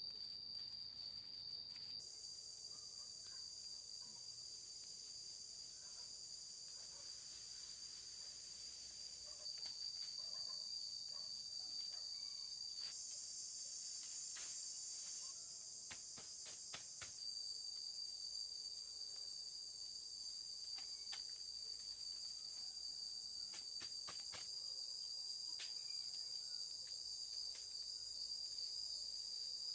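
Insects trilling steadily in a continuous high-pitched chorus, with scattered faint clicks and ticks.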